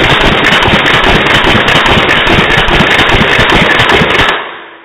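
Custom H&K 416C airsoft rifle with a recoil system firing one long full-auto burst, a rapid run of sharp cracks that stops suddenly about four seconds in.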